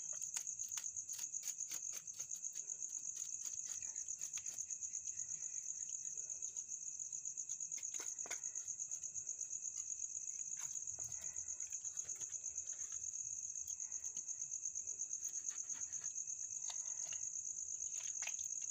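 A steady, high-pitched trill of night insects runs throughout. Over it come repeated short scrapes and clicks of a knife blade scraping the scales off a fish.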